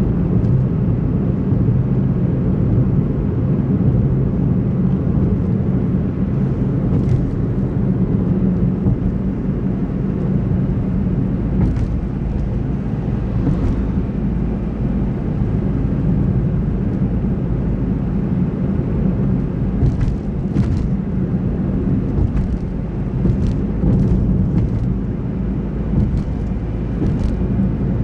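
Car driving at a steady speed, heard from inside: a steady low rumble of road and engine noise, with a few faint ticks now and then.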